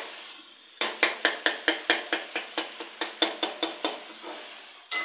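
A rapid, even run of about fifteen sharp knocks, about five a second, from a kitchen utensil striking repeatedly, stopping about four seconds in, with one more sharp click near the end.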